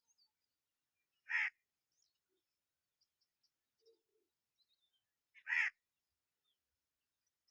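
Two short, harsh bird calls, about four seconds apart, with faint high chirps from other birds between them.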